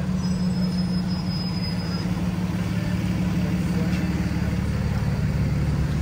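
A motor vehicle engine running steadily on the street, a constant low hum with the noise of traffic around it.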